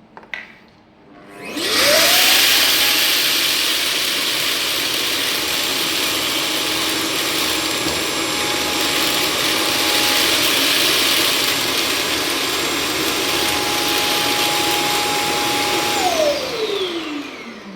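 Robot vacuum's self-emptying base station running its suction motor to empty the dustbin into the dust bag. It is a loud rush of air with a steady whine that rises as the motor spins up about a second and a half in, holds steady for about fourteen seconds, then falls in pitch as the motor winds down near the end.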